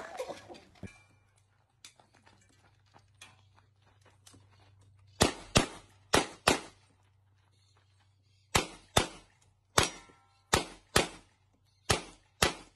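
Pistol shots fired in quick pairs, eleven in all: four in about a second and a half starting about five seconds in, then seven more over the last four seconds. A faint steady low hum runs underneath.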